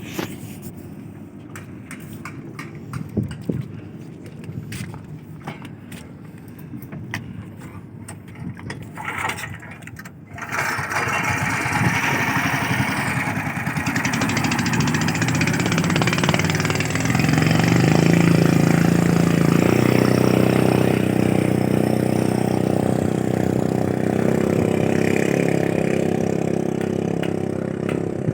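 Small fishing boat's motor: quiet with scattered clicks for the first ten seconds, then the engine comes up suddenly and keeps running steadily and much louder, peaking in level about halfway through.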